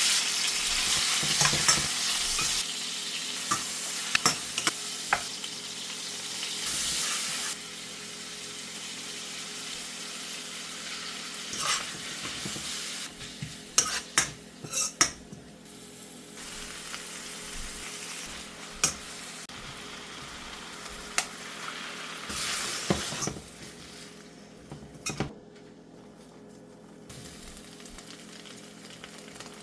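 Food sizzling in a hot frying pan while being stirred, with a utensil scraping and knocking against the pan. The sizzle is loudest in the first few seconds and quieter from about eight seconds in, with bunches of sharp knocks around the middle and again later.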